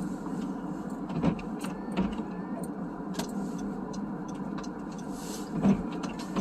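Steady running hum of a car heard from inside the cabin while driving, with a few short knocks, the loudest near the end, and small ticks throughout.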